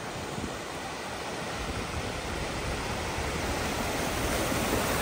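A vehicle driving through floodwater, a steady rush of water wash and spray with a low rumble, growing steadily louder as it comes closer.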